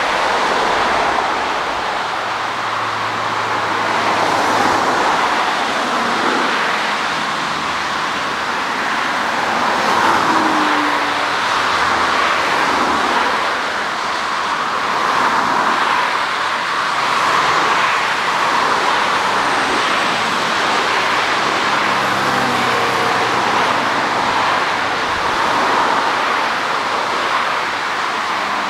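Steady distant jet-engine roar from a twin-engine airliner lined up on the runway, heard as a broad, even hiss-like rumble with no sharp events; near the end the aircraft begins its takeoff roll.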